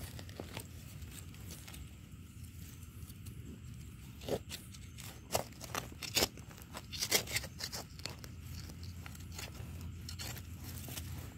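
Knife blade scraping and cutting into soil, with earth crunching and crumbling under the fingers, in a cluster of short sharp scrapes from about four to eight seconds in, over a steady low rumble.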